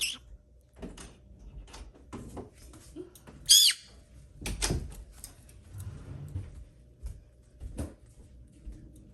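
A small pet parrot squawks: a brief high call at the start, then a loud short squawk about three and a half seconds in, among scattered light knocks and clicks.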